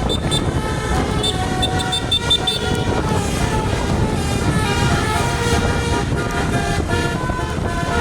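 A tour bus's telolet basuri, a multi-note musical air horn, playing a long run of stepped notes as a tune, over the bus's engine and road noise.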